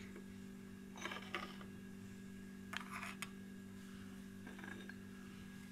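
Quiet room with a steady low hum and a few faint, brief rustles from handling, about one, three and four and a half seconds in.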